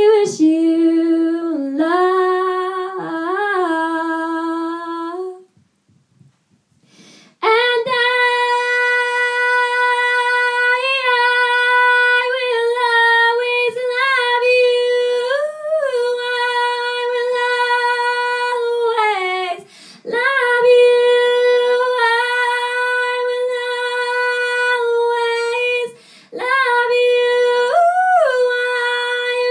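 A woman singing unaccompanied in a pop ballad style. After a short phrase and a pause of about two seconds, she holds long high notes for several seconds each, decorated with small turns and vibrato, and takes brief breaths between them.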